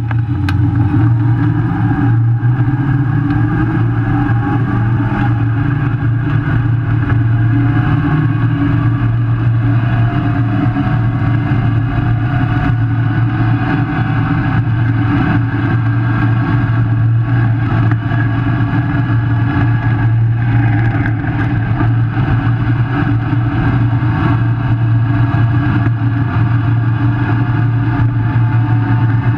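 Lifted 4th-gen Toyota 4Runner with a solid front axle driving on a dirt road in four-wheel drive, heard from beneath the truck: tyre and gravel noise over a steady low drone, with a whine rising in pitch over the first several seconds as it gathers speed.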